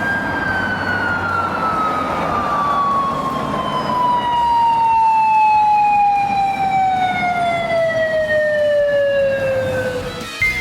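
Japanese police siren wailing: one long tone held high, then falling slowly and steadily in pitch for about nine seconds, over traffic noise.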